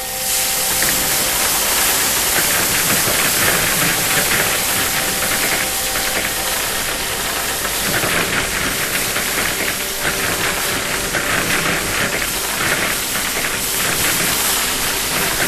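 A loud, steady rushing hiss with a crackly texture, setting in at the start and holding throughout.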